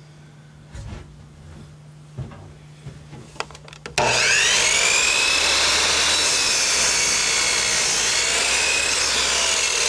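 A few light knocks as a wooden block is set against the saw fence, then about four seconds in a power miter saw starts abruptly and runs loud and steady, its blade cutting down into the thick block with a whine that wavers in pitch.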